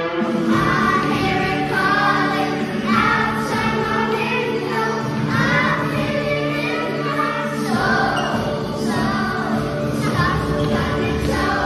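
A song playing: sung vocals over steady instrumental backing.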